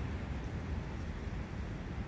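Brook running: a steady rush of flowing water, heaviest in the low end.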